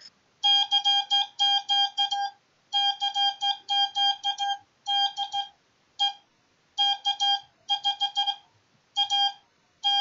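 MFJ-557 Morse code practice oscillator beeping a buzzy tone, keyed by hand on its built-in key into dots and dashes, sending CQ calls at about 17 words per minute.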